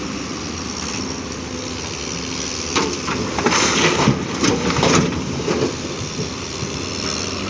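JCB NXT 225LC M tracked excavator's diesel engine running steadily while it loads broken quarry rock, with a burst of rocks clattering and crashing into the steel tipper body from about three seconds in, lasting two to three seconds, as the bucket is emptied.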